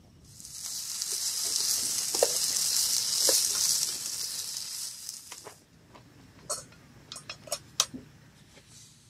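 Chicken and sliced onion sizzling in a frying pan, stirred with a wooden spatula, with a few light taps; the sizzle stops about halfway through. Then several sharp clicks of a metal spoon against the pan.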